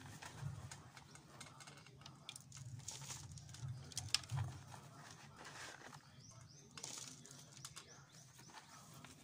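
Faint rustling and crackling of dry potting mix and a thin cut plastic bottle as soil is pressed by hand around a grape cutting, with scattered small clicks. Quick high bird chirps come in about six seconds in.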